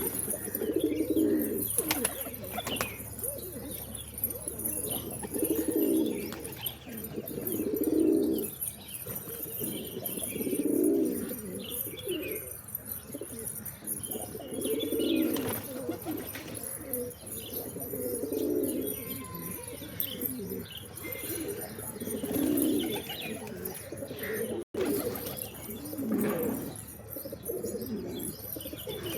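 Pigeons cooing, low repeated coos every second or two, with faint higher chirps now and then.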